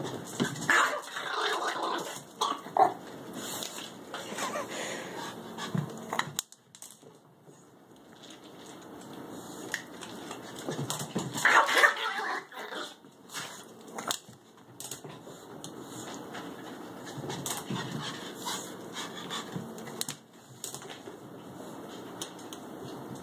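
Excited Pomeranian making dog noises, in irregular bursts that are loudest about a second in and again around twelve seconds in.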